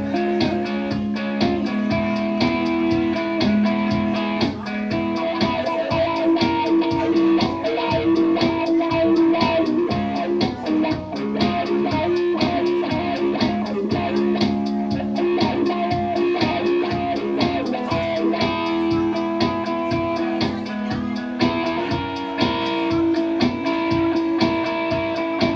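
Electric guitar, a semi-hollow-body, played live: a steady stream of picked notes and chords.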